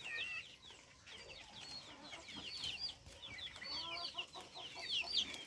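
Backyard chickens with young chicks: a steady scatter of quick, high, bending peeps from the chicks and a few lower hen clucks about halfway through, all fairly quiet.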